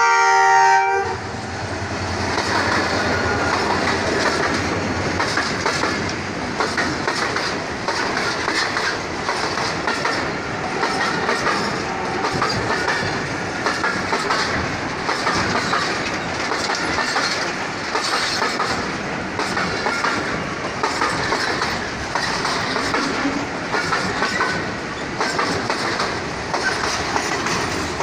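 Diesel locomotive horn sounding a chord that cuts off about a second in. Then the steel wheels of a container freight train run past close by, with a steady rumble and a rhythmic clickety-clack over the rail joints as wagon after wagon goes by.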